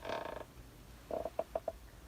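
Old wooden rocking chair creaking as it rocks: one longer creak, then a quick run of short creaks about a second in.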